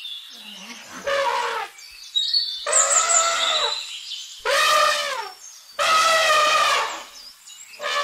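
Elephant trumpeting: a run of about four loud, high, brassy calls, each about a second long, with pitch that falls away at the end of each call.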